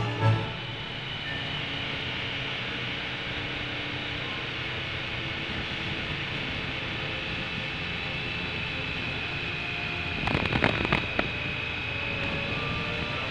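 Steady wind rush and road noise from a motorcycle riding at moderate speed, with the Triumph Tiger Sport's three-cylinder engine running evenly underneath, heard through a bike-mounted action camera. A short cluster of knocks comes about ten seconds in.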